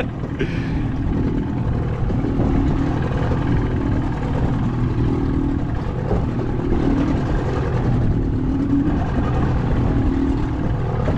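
Boat's outboard motor running steadily in reverse to hold the boat against a fast drift, with wind buffeting the microphone.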